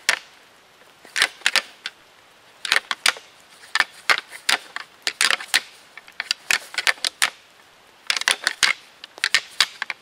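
A pair of deer antlers clashed and ground together by hand: rattling to imitate two bucks sparring. It comes in bursts of sharp clacking with short pauses between them.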